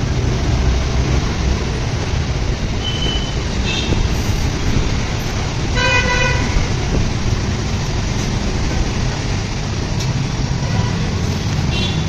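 Steady road traffic noise with a vehicle horn honking once, briefly, about six seconds in.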